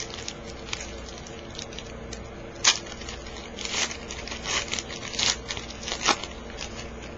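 Crinkling and tearing of a trading-card pack wrapper being opened and handled, a string of sharp crackles, the loudest about three seconds in and a run of them between about three and a half and six seconds in, over a faint steady hum.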